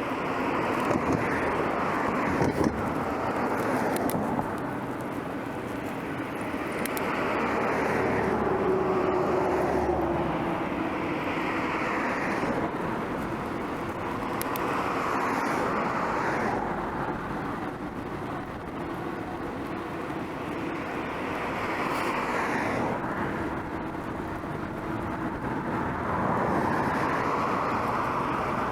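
Road traffic: a series of cars passing one after another, each swelling up and fading away with a slide in pitch as it goes by, over a steady background of road noise.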